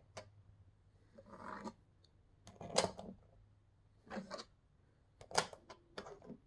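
Light clicks and rubbing of plastic nail-polish swatch sticks being handled and set down on a cloth-covered tabletop, in about five short bursts, over a faint steady hum.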